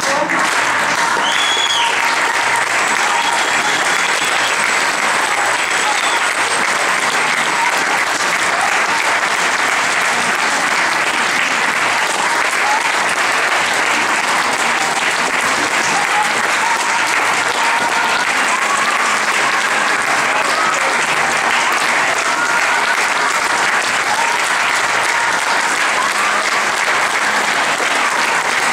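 Theatre audience applauding, dense steady clapping throughout the curtain call.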